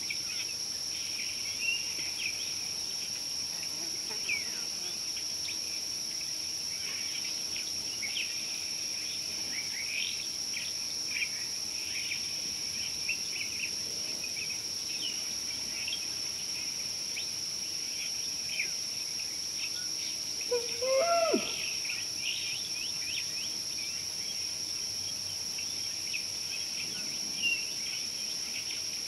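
Bush ambience: a steady high insect drone with scattered short bird chirps. About two-thirds of the way through, a louder animal call slides down in pitch.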